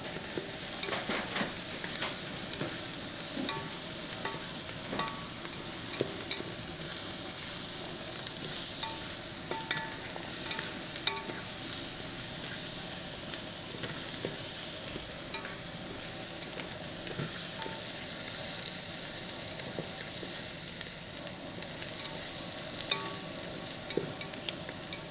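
Chopped onions sizzling as they fry in oil in a steel pot, stirred with a spoon that clicks and scrapes against the metal now and then.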